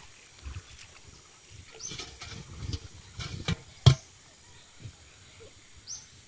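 A large aluminium cooking pot being turned upside down and set on dirt ground: rustling scrapes, then a few metallic knocks, the loudest a sharp clank about four seconds in.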